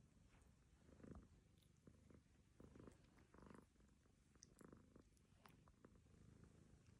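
A cat snoring softly, a rough breath sound about once a second, with faint ticks from another cat licking its fur.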